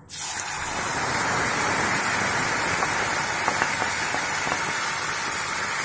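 Hot oil sizzling steadily as wet tomato-and-cashew paste is poured into a steel pan of tempered whole spices; the sizzle starts suddenly as the paste hits the oil.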